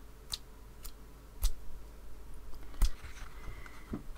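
A handful of short, sharp taps and clicks at uneven intervals, the loudest two with a dull knock: a wet paintbrush being tapped and flicked to spatter water over an ink-blended card.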